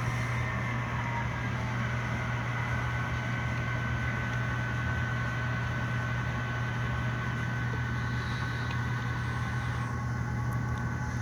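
HO scale Norfolk Southern SD40-2 model locomotive running on the layout: a steady low hum, with a thin high whine that settles in about two seconds in.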